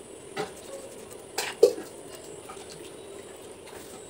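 A hand sloshing and rubbing food in water in a plastic bowl, with a few small knocks and clicks against the bowl, the sharpest about one and a half seconds in, over a steady faint hum.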